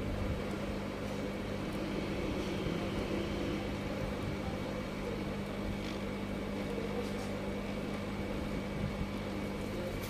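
Hot-air rework station blowing steadily onto a laptop motherboard, a fan-like rush with a constant low hum, while it heats a shorted protection part ('PF') to desolder it.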